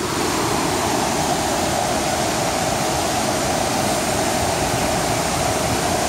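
Düden Waterfall's cascades and the fast river below them rushing in a steady, unbroken noise, the water running at high flow.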